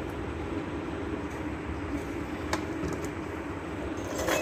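Steady low background rumble, with a sharp click about two and a half seconds in and a louder click near the end.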